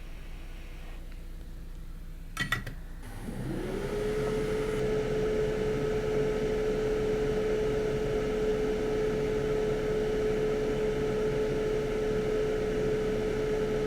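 A couple of sharp clicks as a switch is pressed, then a hot air rework station's blower spins up, its whine rising briefly and then holding one steady pitch over a steady rush of air.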